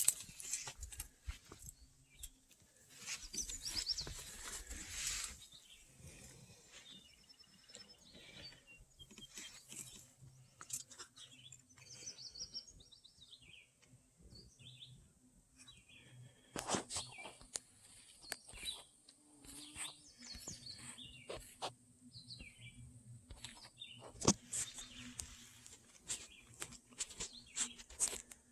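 Wild birds chirping on and off, with a brief rustling rush a few seconds in and scattered sharp clicks and knocks close by.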